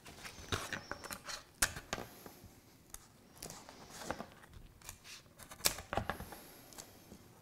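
A paper template being taped onto a piece of cardboard: short rasps of tape pulled and torn from the roll, paper and cardboard rustling, and a few sharp taps as the cardboard is handled.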